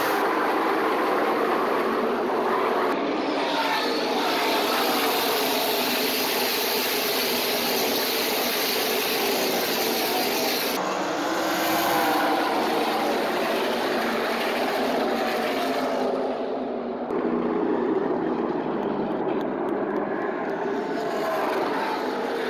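A pack of NASCAR Camping World Truck Series trucks racing past, their V8 engines running hard, with the engine pitch rising and falling as trucks go by.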